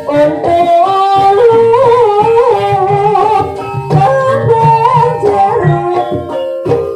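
Javanese gamelan music accompanying an ebeg dance: a singer's melody with sliding, wavering notes over the ensemble's steady struck tones, gongs and drum.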